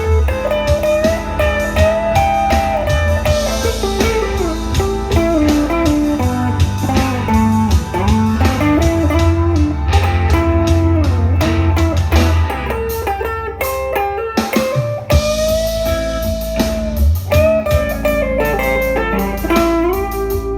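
Gibson Les Paul electric guitar played through a Marshall DSL2000 amplifier: single-note lead lines with string bends and long held notes over sustained low notes.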